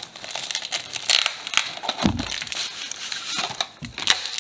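Crinkling and crackling of plastic wrap, cardboard box flaps and foil booster packs being handled as Pokémon card packs are pulled from their box, with a dull knock about two seconds in.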